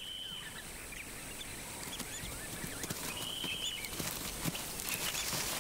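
Quiet rustling and crackling of dry leaves under lion cubs' paws, over a steady outdoor hiss with faint, short, high bird chirps scattered through it.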